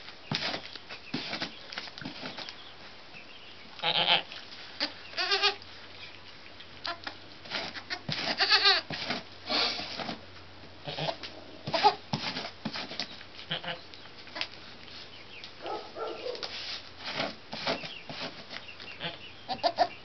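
Goats, a doe with her newborn kids, bleating several times in short, wavering calls, amid rustling and small knocks in the straw bedding.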